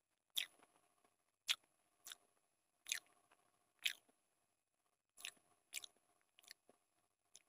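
Close-miked chewing of soft Maggi instant noodles: about ten short, sharp wet mouth smacks at irregular intervals, a few of them close together in the second half.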